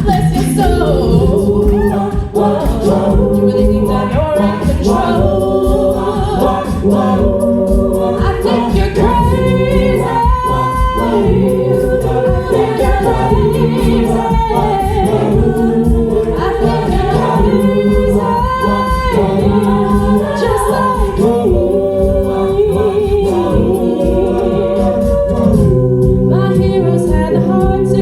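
Choir singing a song, several voices holding and moving through chords together.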